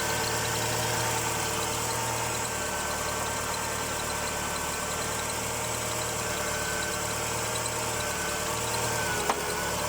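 Mitsubishi Galant E33A engine idling steadily with a thin, steady squeak over it. The squeak is a strange noise at idle of unknown cause, which the owner says is not the drive belts.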